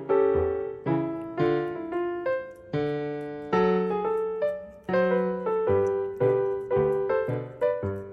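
Background piano music: single struck notes and chords, about two a second, each ringing and fading, ending on a held note near the end.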